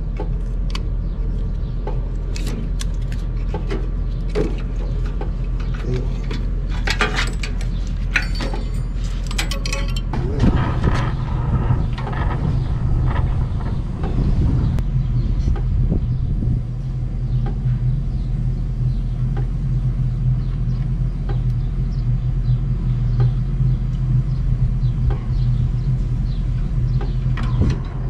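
Metal tools clinking and rattling against the compressor's fittings, then, about ten seconds in, an oxy-fuel brazing torch starts and burns with a steady low rumble as it heats the copper pipe joints on the air-conditioner compressor to unbraze them.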